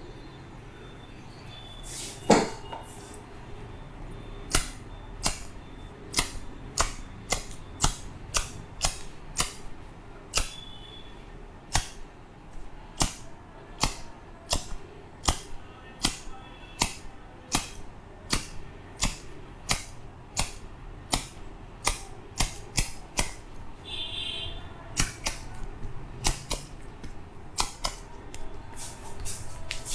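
Hands slapping and clapping in a head massage: a long string of sharp claps, about one to two a second, the loudest about two seconds in.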